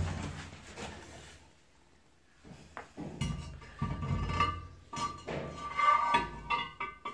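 Scattered knocks and clinks of a ceramic wall-hung toilet bowl being offered up against its steel mounting rods and the wall, with a faint ringing tone among the knocks in the second half.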